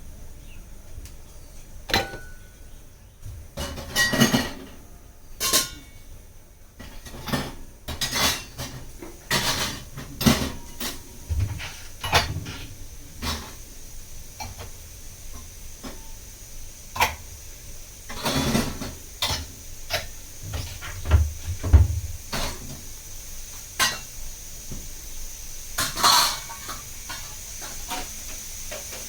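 Kitchen pots, pans and dishes being handled: many separate clanks and clinks as utensils are picked up and set down, some in quick clusters, over a faint steady high hiss.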